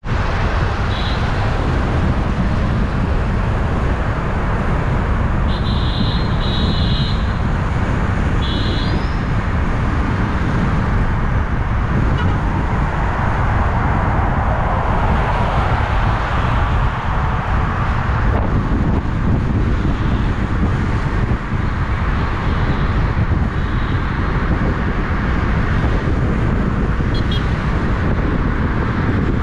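Steady road and wind noise from a moving vehicle driving through traffic, a heavy low rumble throughout. A few short high-pitched beeps come in the first ten seconds.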